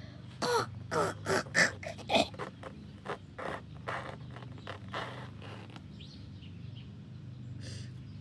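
A woman imitating a bird call with her voice: a quick run of short, sharp calls for about two seconds, then fainter ones trailing off around halfway, over a low steady hum.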